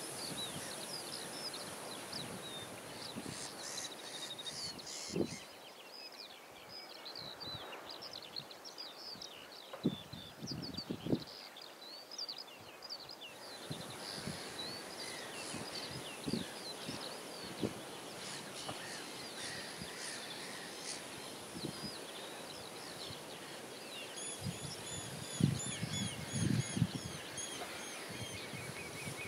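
Many seabirds calling over the estuary, short chirping calls throughout and a run of evenly repeated calls near the end. Wind knocks on the microphone in low thumps now and then.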